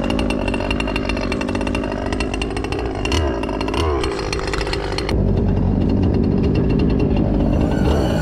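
Stock 30cc Zenoah two-stroke gas engine of a Zelos 48G RC boat running at idle, with short throttle blips about 3 and 4 seconds in. About five seconds in the engine sounds louder and duller.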